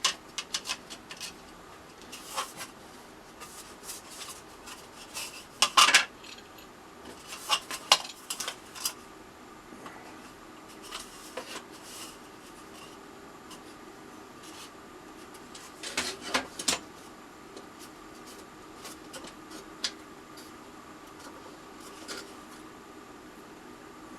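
Thin plywood pieces and small corner braces being handled and set down on a workbench: scattered light clicks and clattering knocks, coming in several short clusters with quiet gaps between.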